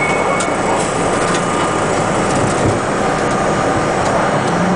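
R-32 subway train running slowly along a station platform, heard from inside the front car: a steady loud rumble and hiss of the running train. A high wheel squeal stops about half a second in.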